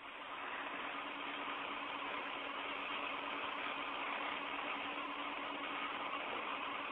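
Steady hiss of an open spacewalk radio channel, with a faint low hum underneath.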